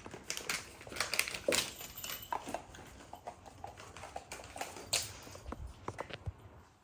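Dry dog treats rattling and clicking inside a plastic treat-dispensing ball toy as it is handled and its two halves are fitted together: a string of light plastic clicks, with one sharper click about five seconds in.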